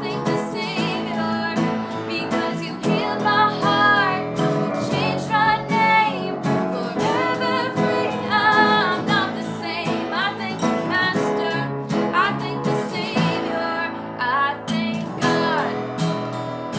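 Worship song played on a strummed acoustic guitar, with a singing voice over it.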